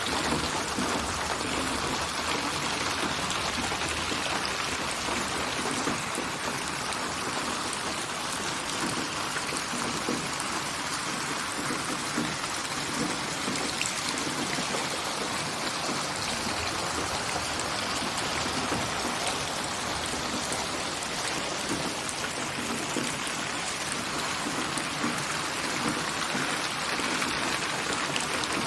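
Steady rain with dense raindrop patter, an even wash of noise with many small drop ticks, built from layered rain recordings and panned around the head in binaural 8D audio.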